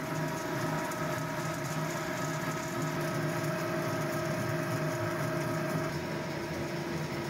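Pellet mill machinery running steadily: an even mechanical hum with several steady whining tones. One of the higher tones drops out about six seconds in.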